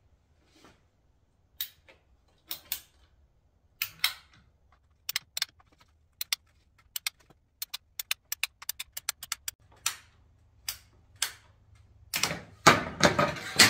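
Hand PVC pipe cutter biting through 2-inch PVC pipe: a series of sharp clicks as the handles are squeezed and ratcheted, single at first, then in quick runs of several a second. A louder, longer rattling burst near the end as the cut goes through.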